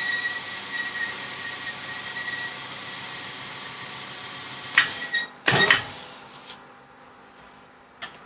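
Cylinder hone with stones running in a Perkins 248 block bore, a steady hiss with a high whine, fading over the first few seconds. About five seconds in it stops, with a couple of loud metallic clunks, then a lighter click near the end.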